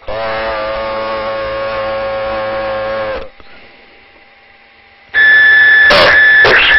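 Steady tones coming through a CB radio receiver: a buzzy tone for about three seconds, then after a pause a louder, high, steady beep with two clicks in it.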